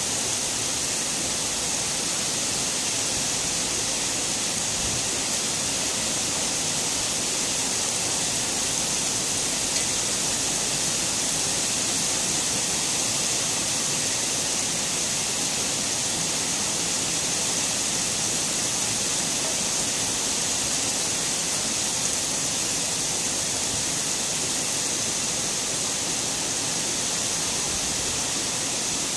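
Heavy rain pouring down on pavement and foliage, a steady, even hiss that holds at the same level throughout.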